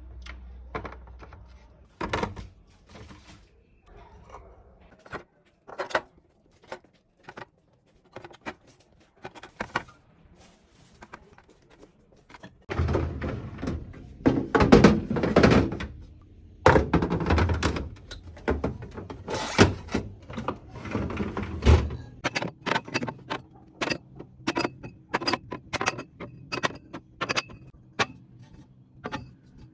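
Containers and food items being set down and moved around on refrigerator shelves: a run of separate knocks and clicks, with a louder, denser stretch of clattering and handling in the middle.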